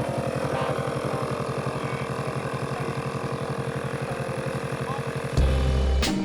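ATV engine idling with a steady, even pulse. Near the end it turns into a louder, deeper surge.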